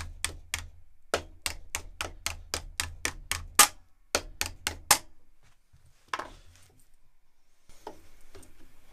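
Soft-faced mallet tapping the flange of an aluminium sheet fuel-tank end over wooden form blocks, about three or four even blows a second, working the edge up a little at a time. The blows stop about five seconds in, and a single knock follows near six seconds.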